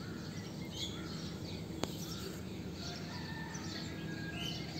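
Faint, scattered chirps of small birds over a steady outdoor background noise, with a single light click nearly two seconds in.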